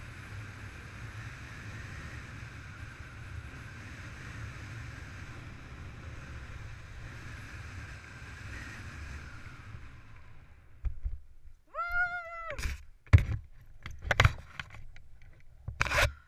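Steady wind rushing over a helmet-mounted camera under an open parachute during the final descent. It cuts out about ten seconds in at touchdown. After that come a short high cry, then a series of knocks and rustles as the parachute gear is handled.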